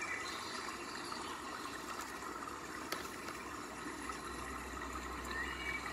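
Steady low background hiss with a single sharp click about three seconds in; a low hum comes in a little after four seconds.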